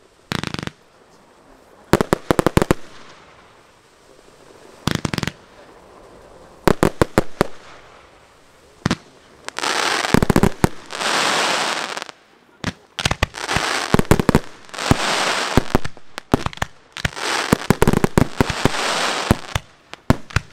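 Professional fireworks display: clusters of sharp bangs from aerial shells bursting every couple of seconds, then from about halfway long stretches of dense crackling and hissing with bangs mixed in, as many effects go off at once.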